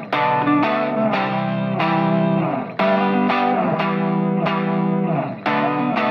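Outro music: a distorted electric guitar playing chords, struck again at regular intervals in a steady rhythm.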